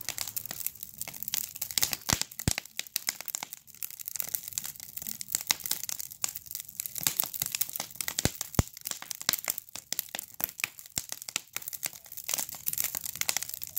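Campfire crackling: burning wood gives off a dense run of sharp crackles and snaps, with a few louder pops standing out.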